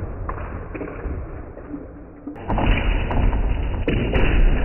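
Lego Technic Mercedes Zetros model truck crashing into a wall. A heavy rumble starts just past halfway, and sharp knocks and plastic bricks clattering come near the end.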